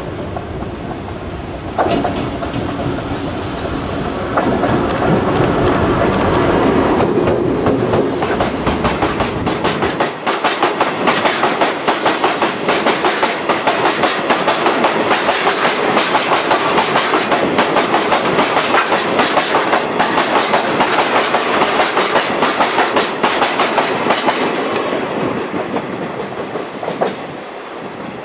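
Chichibu Railway freight train of the Deki 507 electric locomotive and twenty Woki limestone hopper wagons passing close by. A heavy low rumble comes first, then a fast, steady clickety-clack of the wagons' wheels over the rail joints, fading as the end of the train goes by near the end.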